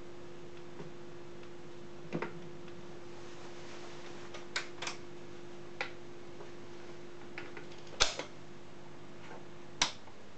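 Portable record player running with no music: a steady motor hum, with scattered mechanical clicks from the turntable and changer, the loudest about eight seconds in. Near the end a final click cuts the hum off as the player is switched off at its front knob.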